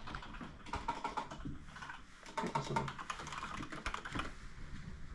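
Typing on a computer keyboard: quick, irregular key clicks in flurries, busiest in the middle.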